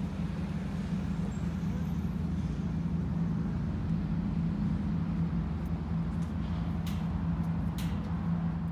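Steady low mechanical drone, like an idling engine, with a few sharp metallic clicks near the end as the steel gate's lock is worked.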